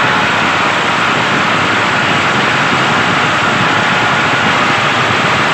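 Small battery-powered electric motors and gearboxes of toy tractors running steadily, a constant whirring with a faint whine, while the tractors pull against the mud.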